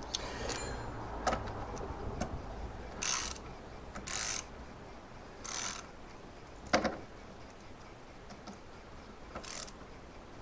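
Ratchet spanner tightening a steering-rack bolt, with four short ratcheting strokes and a few sharp metal clicks of the tool on the fitting.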